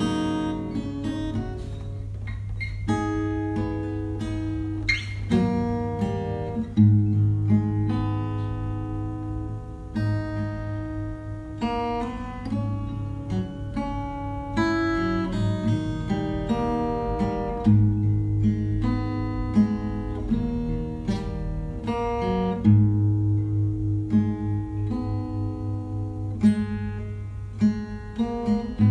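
Background music: plucked and strummed acoustic guitar.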